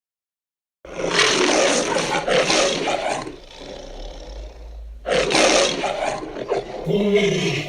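Designed dinosaur roar sound effect for a Spinosaurus: two loud, rough roars, the first beginning about a second in, joined by a quieter rumbling growl. The second roar ends in a deeper growl that rises and falls in pitch.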